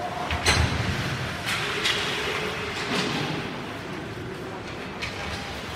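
Ice hockey play: a steady scrape of skate blades on the ice, broken by sharp clacks of sticks, puck and boards. The loudest is a heavy thud against the boards about half a second in, with lighter cracks about a second and a half in, near two seconds, at three seconds and near five seconds.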